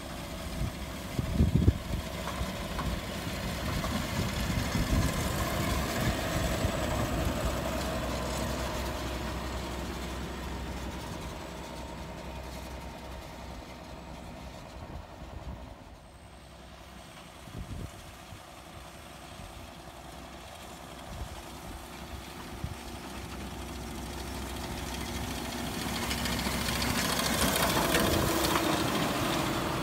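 John Deere tractor's diesel engine running as it pulls a belt merger whose pickup gathers dry hay, the sound swelling as the machine passes close and again near the end. A few sharp thumps come about a second and a half in.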